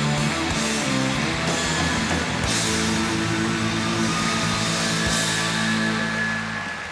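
Rock music with electric guitar, ending in a long held chord that dies away shortly before the end.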